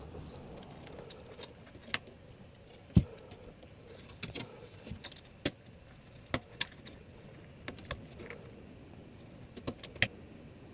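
Scattered small metal clicks and taps as mounting screws for a Noctua NH-L9i CPU cooler are started by hand from beneath a motherboard.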